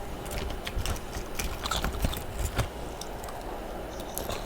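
Freezer frost being crunched and chewed close to the microphone: irregular crisp crunches, thinning out after about three seconds.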